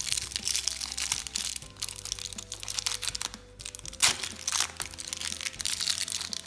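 Plastic wrapper crinkling and crackling as a small toy packet is opened by hand, over background music with long held notes.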